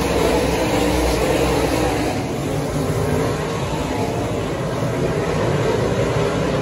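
Several USRA Modified dirt-track race cars' V8 engines running together as the field circles the track, a steady mix of engine notes that eases slightly about two seconds in.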